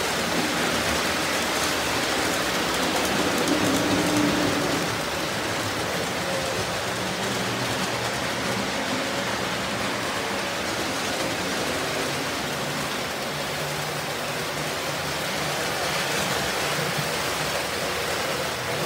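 Several early-1950s Lionel toy trains running together: a steady, dense rolling noise of metal wheels on the rails, with a low motor hum underneath.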